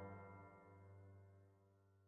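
Faint last chord of background music, held and fading away.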